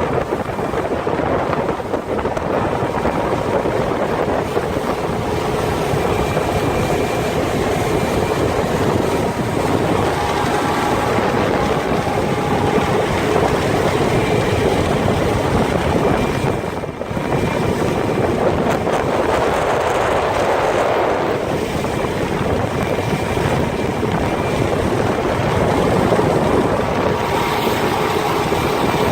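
World Cat 330TE power catamaran underway: a steady drone from its twin outboard motors, mixed with wind noise on the microphone.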